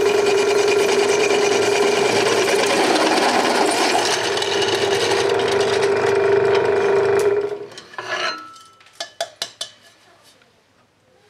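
Bench drill press drilling through a square steel tube: a steady cutting noise with a held tone that stops about seven seconds in. It is followed by a few sharp metal clinks as the steel bar is lifted off the table.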